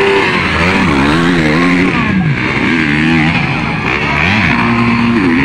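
Several motocross motorcycle engines revving hard and overlapping, their pitch repeatedly rising and falling as the riders work the throttle and shift through the gears.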